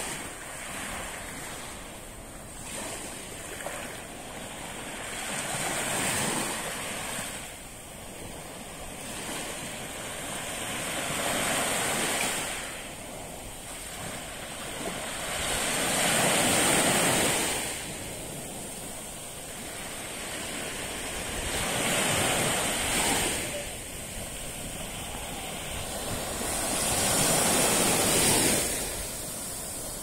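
Small sea waves breaking and washing up a sandy beach, each wave swelling and fading about every five to six seconds.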